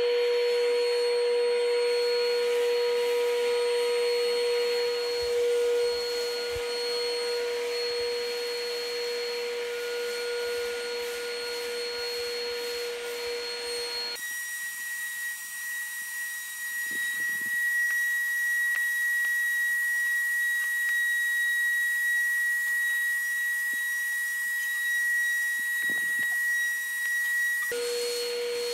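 Vacuum running steadily as it sucks wood shavings off the floor through a 100 mm corrugated aluminium duct into a homemade barrel cyclone: a steady motor whine with rushing air. About halfway in, the whine changes abruptly to a higher pitch.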